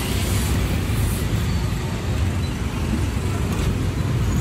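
Steady street traffic noise: a continuous low rumble of passing vehicle engines.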